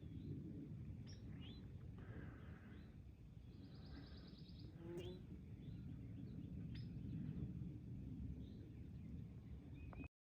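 Wind rumbling on the microphone with scattered small bird chirps and one short high trill about four seconds in; the sound cuts off suddenly just before the end.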